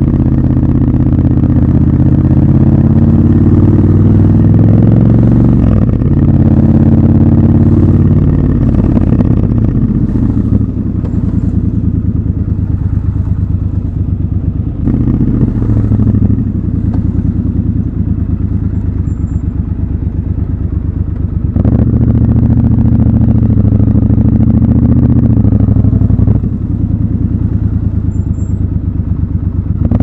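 Triumph Scrambler 1200 XC's parallel-twin engine running under way, heard raw from the rider's position. Its pitch falls sharply twice early on, it runs quieter and lower through the middle, then picks up and pulls harder again about two-thirds through.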